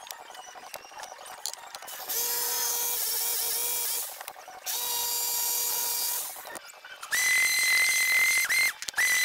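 Corded jigsaw cutting plywood in two steady runs of about two seconds each, its motor giving an even whine. About seven seconds in a second, higher-pitched power tool starts, a steady whine that briefly stops and restarts near the end.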